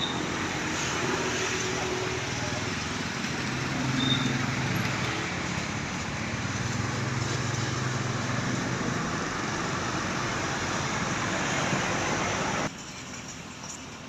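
Road traffic passing: a steady rush of tyre and traffic noise with a bus engine droning by in the middle. The sound drops abruptly to quieter traffic near the end.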